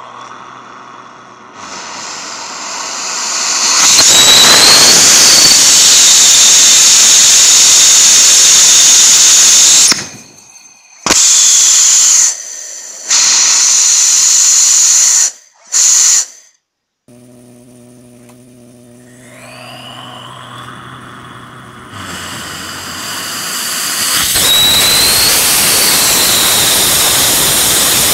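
Homemade ethanol and gaseous-oxygen rocket engine on a test stand: a loud hissing jet from its nozzle that builds up over the first few seconds and holds steady. Around the middle it cuts out and fires in three short bursts, then after a quieter stretch with a faint whistle it builds back to a loud steady hiss near the end.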